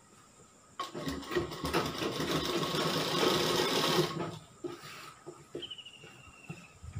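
Sewing machine running in one burst of about three seconds, stitching a seam, then stopping; a few short knocks follow as the machine and cloth are handled.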